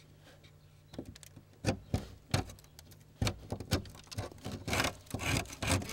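Stiff steel putty knife scraping and chipping hard, brittle old glazing putty off a wooden window sash: irregular scrapes and small knocks, coming faster near the end.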